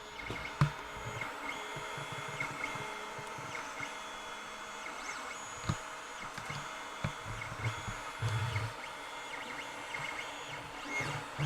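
Creality Ender 5 3D printer printing: its stepper motors whine in short steady tones that jump in pitch and stop and start as the print head moves, over a steady hum, with scattered soft low knocks.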